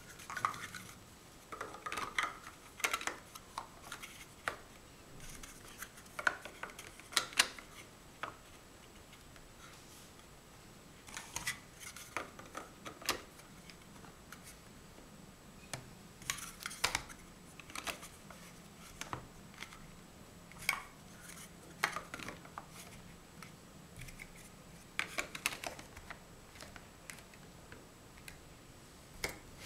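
Large hollow plastic Mega Bloks First Builders blocks clicking and clacking as they are pressed together and set down on a tabletop. The clicks come in irregular clusters of a few sharp snaps, with short pauses between them.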